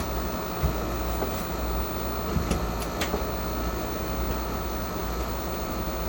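A steady low hum and hiss of a running machine or fan, with a few faint clicks.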